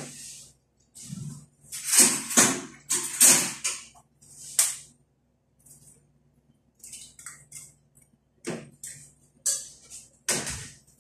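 Irregular clinks and scrapes of kitchen utensils and dishes, a string of short sharp jingly knocks, loudest around two to four seconds in and again near the end.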